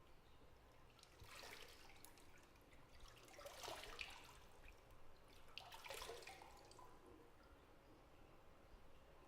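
Bathwater in a tub sloshing and trickling faintly in three short swells, with small drips in them: about a second in, near the middle, and about six seconds in.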